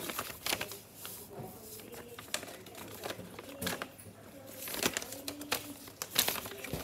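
Paper and plastic packaging of a Beyblade top being handled and unwrapped: irregular crinkling and rustling with sharp crackles throughout.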